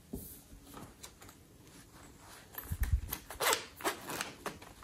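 A fuzzy chenille pencil case being handled: a soft thump about three seconds in, then its zipper pulled open in several short rasps.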